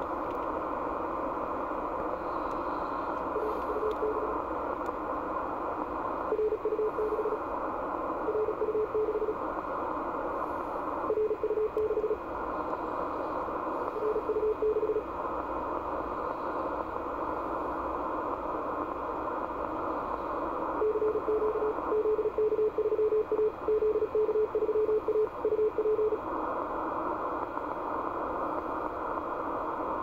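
Icom IC-7600 transceiver audio on the 17 m band: steady receiver hiss with a single-pitch Morse code (CW) tone keyed on and off in short groups, then a longer run of rapid keying from about 21 to 26 seconds in.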